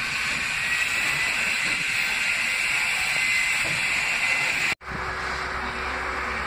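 New York City Subway R68/R68A train approaching, its traction motors howling as a steady high whine over the rumble and hiss of the wheels on the rails. About five seconds in, the sound cuts off abruptly and returns as a quieter, steady rumble with a low hum.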